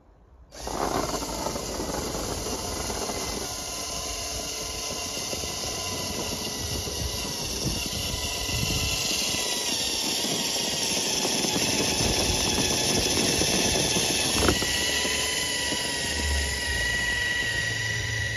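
Electric motors and gearboxes of Tamiya Clodbuster RC trucks whining steadily as they drive over snow, with several steady tones. A click comes late on, after which a higher-pitched whine grows stronger, and the sound cuts off just before the end.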